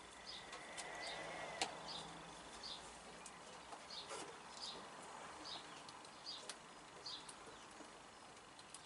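A faint, short, high chirp repeating about once a second from a small calling animal, with a few light clicks.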